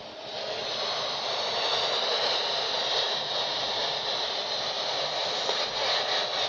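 Uniden handheld CB transceiver's speaker hissing with steady radio static, growing louder in the first second.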